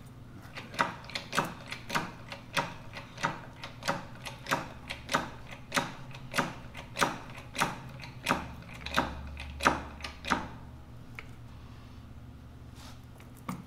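Heavy-duty machinery jack being worked stroke by stroke, a sharp click with each stroke about every 0.6 s, some seventeen in all, stopping about ten seconds in.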